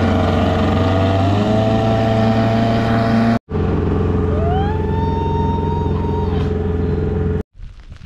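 Small outboard motor running steadily as it pushes a jon boat across the lake, in two clips with a sharp cut about three and a half seconds in. In the second clip, a higher whine rises and holds for about two seconds.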